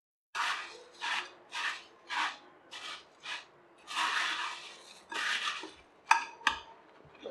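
Puffed rice bhel puri mixture being tossed and stirred in a bowl: about six quick crisp rustling strokes, then two longer rustles. Near the end come two sharp knocks of a spoon against the bowl.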